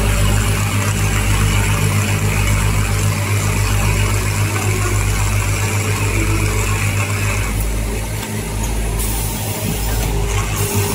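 Automatic breathing-filter assembly machine running: a steady low hum with a dense mechanical noise over it, without a break.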